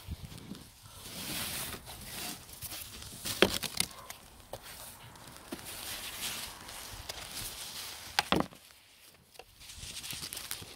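Snow brush sweeping packed snow off a car, a series of scraping, swishing strokes. Two sharp knocks come in, about three seconds in and again about eight seconds in.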